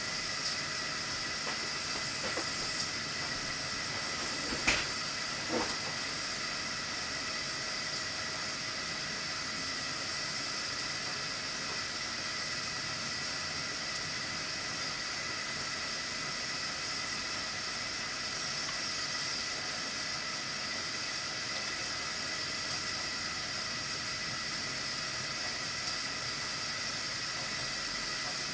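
Stovetop pressure cooker at pressure, steam hissing steadily from the valve on its lid with a faint whistle in it. A couple of light knocks come about five seconds in.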